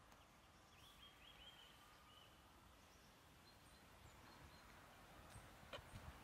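Near silence: faint woodland ambience with a few faint bird chirps about one to two seconds in.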